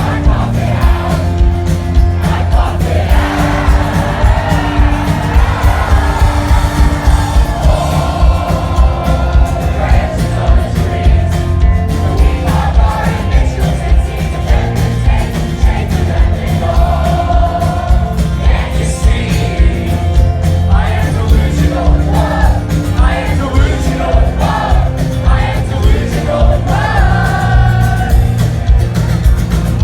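Indie rock band playing loudly live, with sung lead vocals over drums, bass and guitars.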